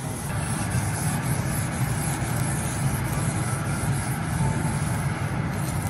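Steady sizzling hiss of a lobster steaming under a copper dome on a hot teppanyaki griddle, over a low steady hum.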